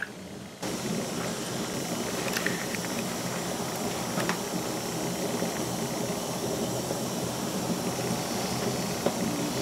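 Steady hiss and bubble of staghorn sumac dye simmering in a can on a wood stove, with the axe head steeping in it to blacken the steel. A couple of faint clicks sound over it.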